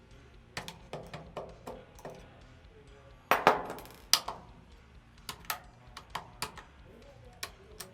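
Irregular sharp metallic clicks and knocks of rifle parts being handled and fitted, with a louder cluster of knocks about three and a half seconds in.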